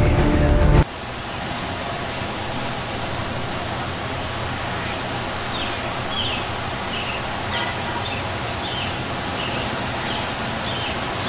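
Music stops abruptly about a second in, giving way to steady outdoor background noise. About halfway through, a run of short high chirps begins, repeating a little under twice a second.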